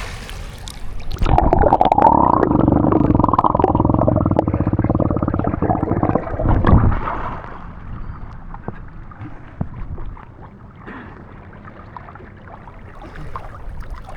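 Pool water churning and gurgling as a swimmer dives and moves underwater: a loud, muffled rumble for about six seconds, then quieter lapping and small splashes.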